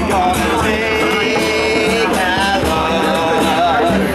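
Live acoustic song: a man singing over an acoustic guitar, with djembe hand drums keeping the beat.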